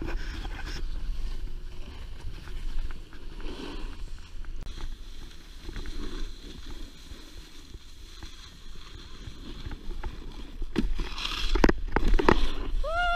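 Snowboard sliding down a groomed slope: a steady scrape and hiss of the board on snow, with wind rumble on the microphone. There are a few louder scrapes near the end, and a person's voice calls out, falling in pitch, at the very end.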